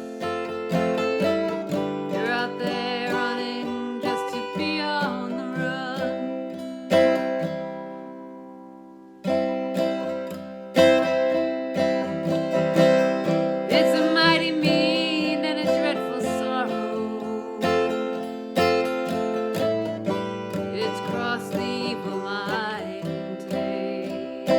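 Acoustic guitar strummed through an instrumental break of a folk song, with a wavering lead melody over it. About seven seconds in a chord rings out and fades, and the strumming picks up again about two seconds later.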